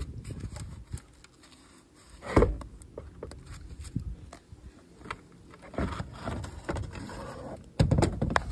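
Gloved hands handling a car battery and its plastic fittings in the engine bay: irregular clicks, knocks and rustling, with a loud thump about two and a half seconds in and another near the end.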